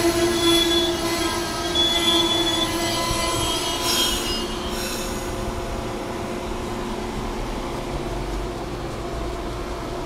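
Amtrak passenger coaches rolling past a station platform, with a steady high squeal that fades out about four seconds in, leaving the steady rumble of the passing cars.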